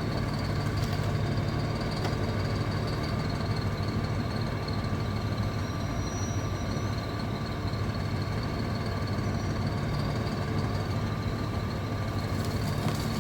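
Hydraulic crane running steadily: a continuous engine drone with a thin, steady high whine above it.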